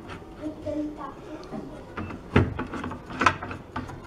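Homemade plywood saw guide handled on the saw table: two sharp wooden knocks, about a second apart, over faint background voices.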